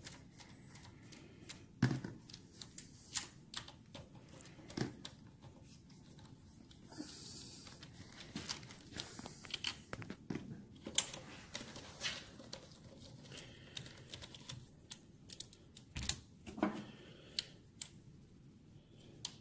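Scattered clicks and light metallic clinks of hand tools and small steel parts being handled on a workbench, with a brief scraping hiss about seven to nine seconds in.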